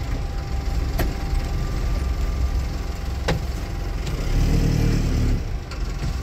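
Car engine running with a steady low rumble, heard from inside the cabin as the car rolls slowly over a dirt track. Two sharp clicks come about a second in and just past three seconds, and the low rumble grows louder for about a second near the end.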